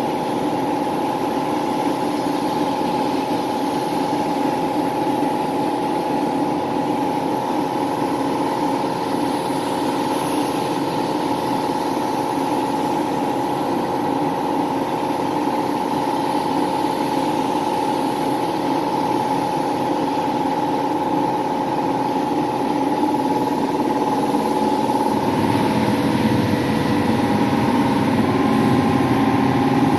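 Air compressor running steadily while a gravity-feed spray gun hisses, spraying primer. Near the end the running gets deeper and a little louder.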